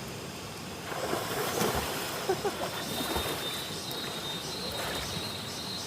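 Running water rushing steadily, growing louder about a second in, with small chirps over it and a thin steady high tone joining about halfway.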